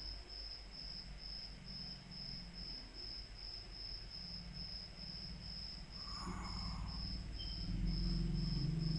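A high-pitched chirping that pulses evenly, about twice a second, over a faint low hum.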